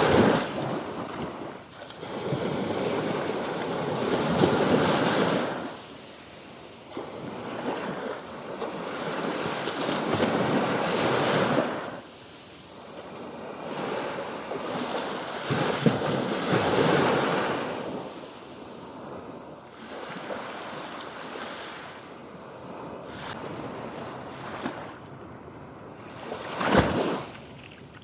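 Small sea waves breaking and washing up a beach, a rush of surf that swells and fades every four to six seconds. A brief sharp thump near the end is the loudest moment.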